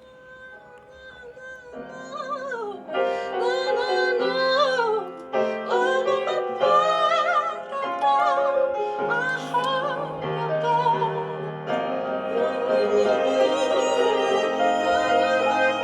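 Music playing through hi-fi speakers, fading in over the first few seconds: a singing voice holding long notes with vibrato over sustained piano chords.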